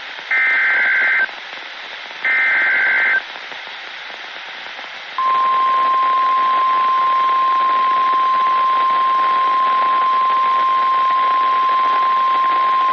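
Emergency Alert System tones over NOAA Weather Radio: two buzzing bursts of SAME header data, each about a second long and a second apart, then about 5 s in the steady 1050 Hz weather radio warning alarm tone starts and holds, all over radio static hiss. The sequence marks the start of a new warning broadcast.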